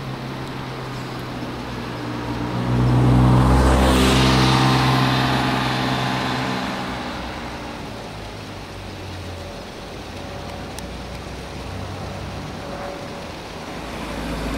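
Motor vehicle driving past on a mountain road, swelling to its loudest about three to four seconds in and then fading away, over a steady low engine hum.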